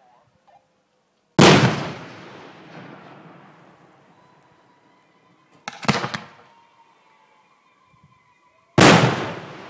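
Aerial fireworks shells bursting: three loud booms, one about a second in, a short crackling cluster midway and another near the end, each followed by a long rolling echo.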